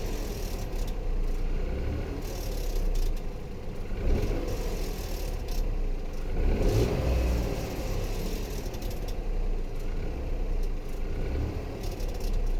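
Engine noise of a Dacia Eco-G 100, a three-cylinder turbo petrol/LPG engine, while the car decelerates. A mid-pitched sound over a low rumble swells and falls away in pitch several times.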